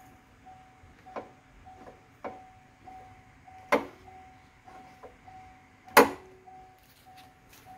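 Light clicks, then two sharper metallic clacks about four and six seconds in, the second the loudest, as the hood's secondary latch lever is handled. A faint high chime tone pulses on and off throughout.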